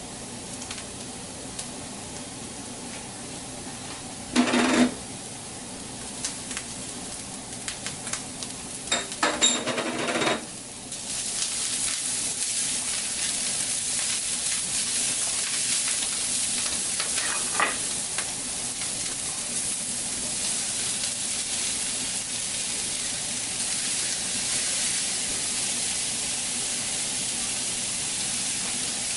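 Diced vegetables frying in oil in a hot pan. A few short knocks come first, then about eleven seconds in a loud, steady sizzle starts and keeps going.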